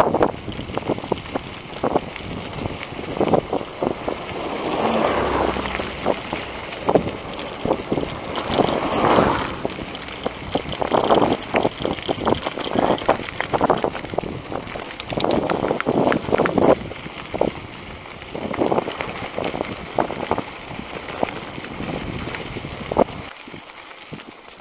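Bicycle rolling down a rough dirt road: tyres crunching over loose gravel and sand, with frequent rattling clicks from the bike and wind buffeting the microphone in gusts. It grows quieter near the end.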